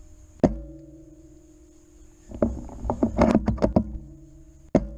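Background music: held sustained tones with a single drum hit about half a second in, a quick run of drum hits in the middle, and another hit just before the end.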